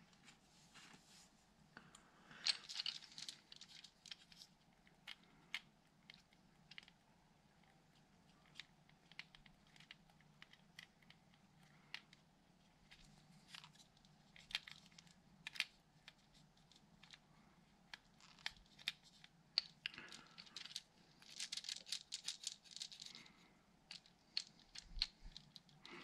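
Faint scattered clicks and rustling of hands handling small parts, busiest a few seconds in and again near the end, over a faint low steady hum.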